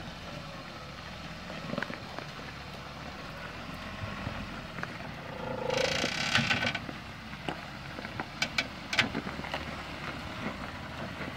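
Toyota pickup's engine running low and slow as the truck crawls over rock ledges, with scattered knocks and scrapes from the tyres and chassis on rock and a louder burst about six seconds in.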